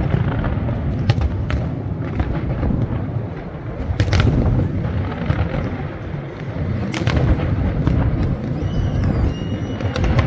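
Fireworks display going off: a continuous low rumble of booms, with sharp bangs and crackles on top, the loudest about four and seven seconds in.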